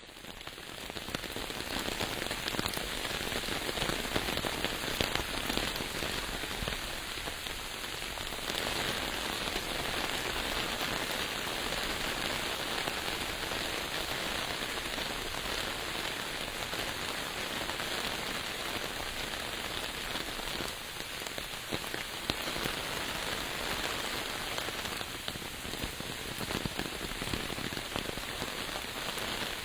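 Steady rain falling, a dense patter of drops that fades in over the first second or so and then holds even.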